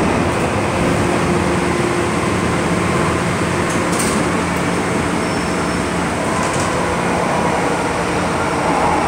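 MTR M-train electric multiple unit running, heard from inside the passenger car: a steady rumble of wheels and car body with a faint low hum.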